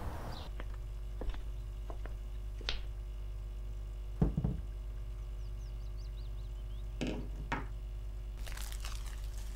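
A glass fishbowl set down on a stone kitchen counter with a heavy knock about four seconds in, among lighter clicks and knocks over a steady low hum. Near the end, a plastic bag crinkles as it is handled.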